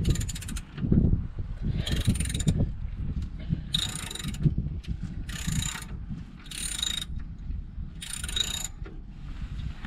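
Socket ratchet wrench clicking in short runs, about six strokes roughly a second and a half apart, as a nut on a hull anode bolt is undone.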